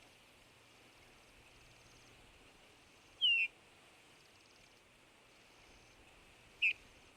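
Bullfinch giving two short, falling piping whistles, the second about three seconds after the first, over a faint steady hiss.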